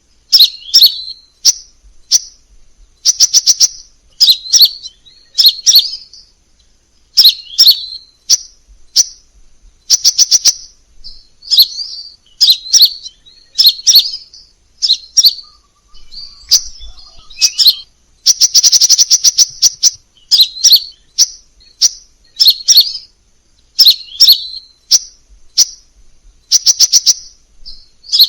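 Crimson sunbird singing: short bursts of high, thin chirps and rapid trills, each under a second, repeated about once a second. A longer, fast trill comes about two-thirds of the way through.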